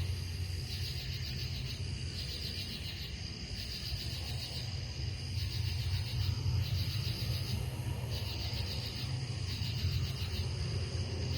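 A chorus of night insects, whose high chirring swells and breaks off in repeated pulses, over a steady low rumble.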